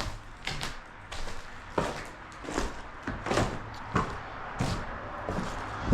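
Footsteps at a steady walking pace, a bit more than one step a second, each a short knock.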